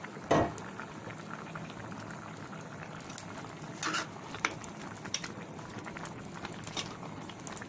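A pot of food bubbling on the stove: a steady hiss with scattered small pops, and a short knock about half a second in.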